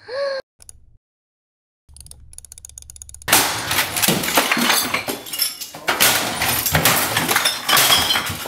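Loud, dense clattering and crashing, many sharp impacts close together like things breaking and smashing, beginning suddenly about three seconds in after a short quiet gap.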